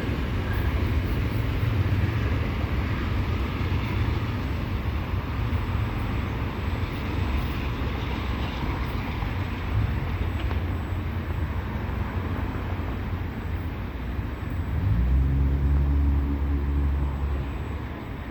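Amtrak passenger train pulling out behind a BNSF locomotive, rolling by with a steady low rumble. About fifteen seconds in, a louder low drone with a steady pitch comes in for a couple of seconds, then fades near the end.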